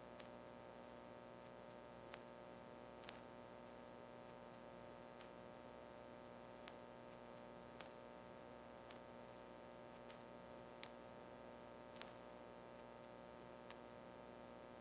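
Near silence: a faint steady electrical hum and hiss, with scattered faint clicks.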